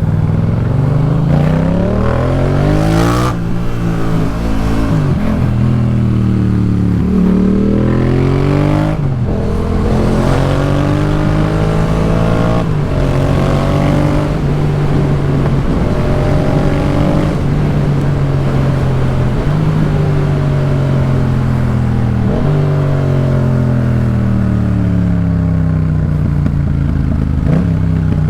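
Yamaha MT-07's parallel-twin engine through a Jeskap K4 full aftermarket exhaust, under way. The revs climb and drop back several times as it is shifted up through the gears, hold steady at cruising speed through the middle, then fall away as the throttle is closed near the end.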